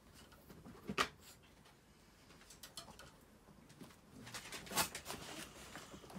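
Light clicks and knocks of handling around wire dog crates, with one sharper knock about a second in and busier clattering from about four seconds on.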